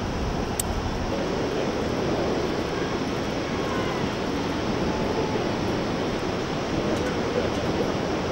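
Steady rushing noise of wind and distant river water rising from the gorge below, even and unbroken, with a few faint clicks.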